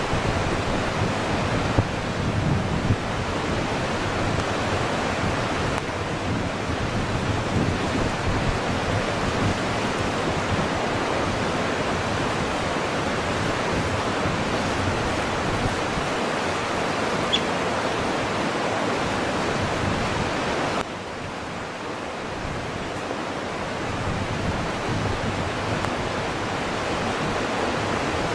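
Steady outdoor rushing noise, like wind on the microphone or running water, with no clear sound from the animals. It drops suddenly about three-quarters of the way through and slowly builds back.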